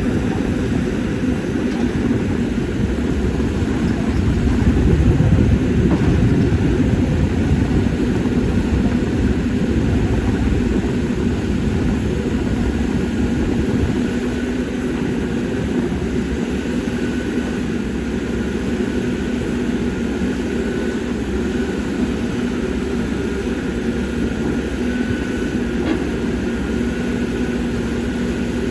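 Caterpillar 320D excavator's diesel engine running steadily as the machine works, swelling louder about four to six seconds in. A faint high whine shows in the later part.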